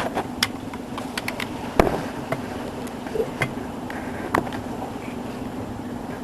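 Scattered small, sharp clicks and taps of hand work on a plastic airsoft pistol, as the pins holding its frame are pushed out. The clicks come irregularly, about a dozen in all, over a steady low background hum.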